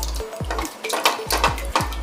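Spoon stirring and scraping against a metal kadhai in quick repeated strokes as a milk-and-cornflour white sauce thickens. Background music with deep bass beats plays over it.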